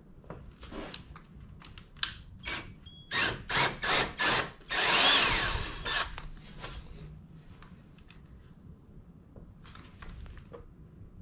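Cordless drill run in several short trigger bursts, then for about a second, with rustling and handling noise close to the microphone around it.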